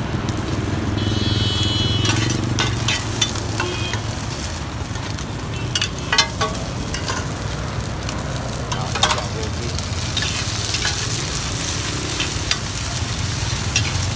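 Pieces of rice-flour cake (bột chiên) sizzling in hot oil in a frying pan, with a metal spatula scraping and knocking against the pan every second or two, over a low steady hum.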